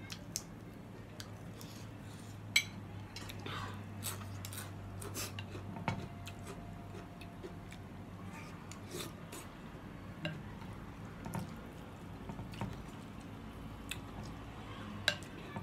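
Spoon and chopsticks clinking and scraping against a ceramic noodle-soup bowl, a few sharp clinks standing out, with soft eating sounds between. A faint low hum underneath fades out about halfway through.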